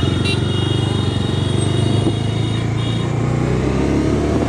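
Bajaj Dominar 250's single-cylinder engine running steadily with a pulsing low note, with a high steady whistling tone over it for roughly the first three seconds.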